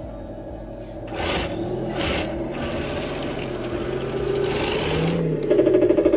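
Electric drive motors and gearboxes of a 1/16-scale Heng Long RC M1 Abrams tank whirring as the tank pivots in place, in several surges. A fast, even rattle starts about five and a half seconds in.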